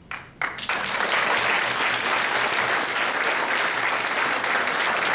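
Audience applauding: two quick claps at the start, then full, steady applause from about half a second in.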